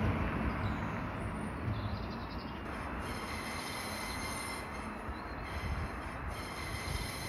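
A train running along the track, a steady rumble with two spells of high-pitched wheel squeal, the first about three seconds in and the second near the end.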